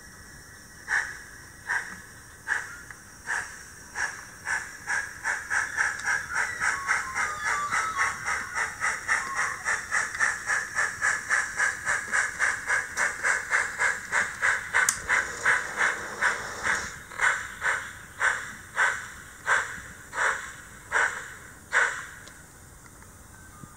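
Simulated steam-exhaust chuffs from an HO-scale model steam locomotive's sound system as it moves off. The chuffs start slow, quicken to about three or four a second, then slow again and stop near the end.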